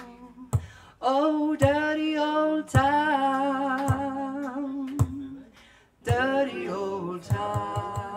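A woman singing long, held notes of an Irish song over single, widely spaced strokes on a bodhran frame drum. Near the end the bodhran picks up a fast, even beat of about four to five strokes a second.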